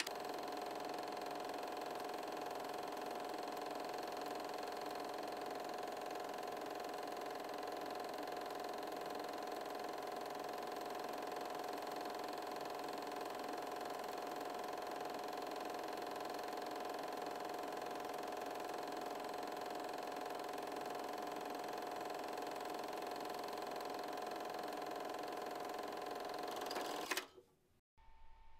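Film projector running: a steady mechanical whir of the motor and film transport, which cuts off suddenly near the end.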